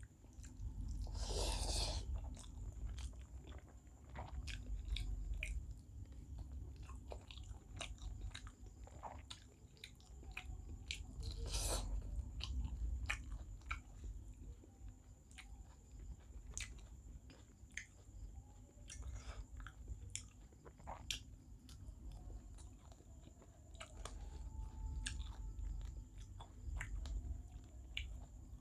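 Close-up mouth sounds of someone eating rice with small fish curry: chewing with many quick wet clicks and smacks, and two louder breathy bursts, one near the start and one about halfway through.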